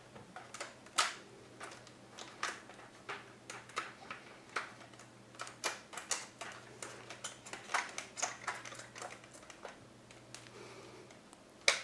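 Irregular light clicks and taps, roughly two or three a second, of a plastic-and-aluminium LED lamp housing and a 3D-printed bracket being handled and fitted together, with one sharper click near the end. A faint steady hum sits underneath.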